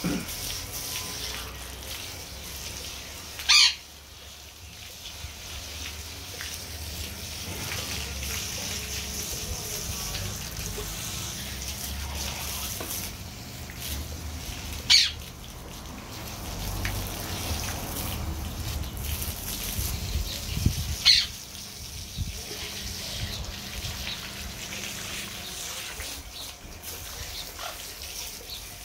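Water running from a garden hose and splashing over a dog's wet coat and the patio tiles. Three short, sharp, loud high sounds stand out over it: a few seconds in, about halfway, and about two-thirds of the way through.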